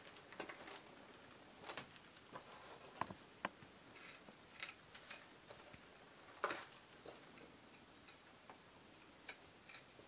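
Knife blade cutting and scraping thin wooden feathers of a whittled fan bird: faint, irregular clicks and short scrapes, the loudest about six and a half seconds in.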